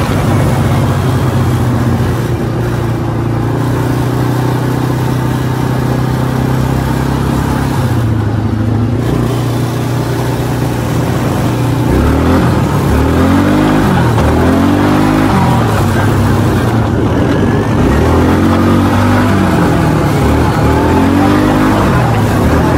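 Small youth quad ATV's engine running: a steady hum at first, then from about halfway the revs rise and fall again and again, every second or two, as the throttle is worked on and off.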